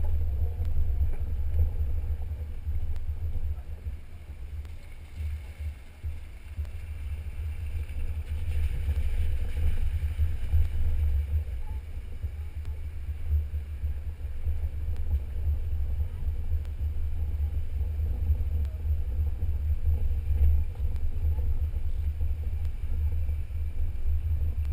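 Low, unsteady rumble of a Jeep driving along a rough dirt trail, picked up by a camera mounted on its hood.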